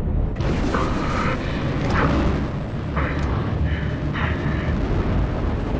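F/A-18 Super Hornet fighter jet at high speed and low altitude, heard as a loud, steady roar that starts suddenly just after the beginning. Short higher tones sound over it about once a second.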